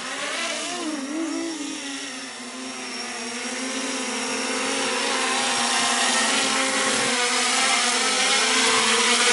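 Electric motors and larger propellers of a small four-rotor folding-wing convertoplane drone hovering as it comes down to land. Their pitch wavers with the throttle in the first couple of seconds, then steadies, and the sound grows louder as the drone nears the ground.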